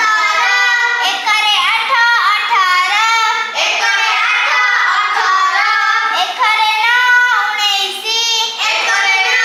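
A young girl singing the multiplication table in Odia as a sing-song chant, phrase after phrase.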